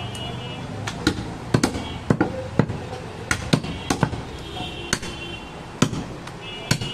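A heavy butcher's knife chopping goat meat and bone on a wooden chopping block. There are about a dozen sharp chops at an uneven pace, roughly two a second.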